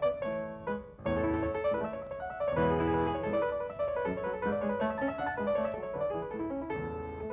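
Background piano music: a steady flow of struck notes and chords.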